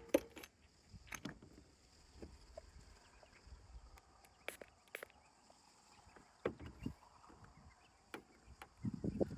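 Scattered sharp clicks and light knocks from hand tools being handled during glue-pull dent repair on a car body panel, a pair at the start and a cluster of duller knocks near the end, over a faint steady high hum.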